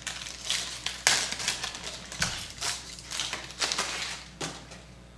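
Baseball trading cards handled by hand, being flipped and slid against each other in a stack: irregular papery clicks and swishes, a few sharper snaps among them, dying away near the end.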